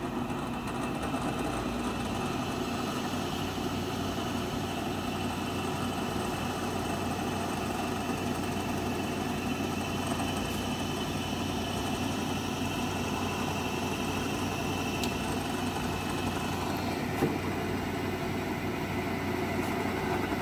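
Clausing Kondia FV-1 vertical knee mill running with the spindle turning, a steady motor hum and whine. Near the end a higher whine drops away, with a single click.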